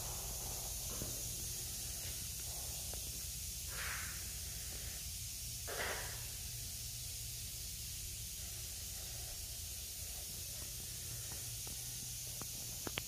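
Quiet shop room tone: a steady low hum under a steady high hiss, with two short hissy puffs about four and six seconds in and a couple of light clicks near the end.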